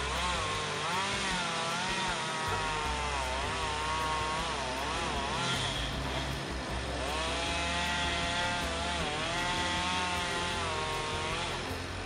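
Chainsaw running and cutting into a tree trunk, its engine pitch rising and falling as it works in the wood and easing off briefly about halfway through before picking up again.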